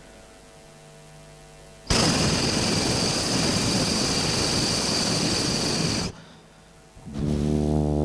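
Mimicry artist's voice through a PA system, imitating a film's opening sound effects: a loud rushing hiss that starts suddenly about two seconds in and cuts off about four seconds later, over a faint mains hum. Near the end a low, steady-pitched droning hum begins, like a deep horn.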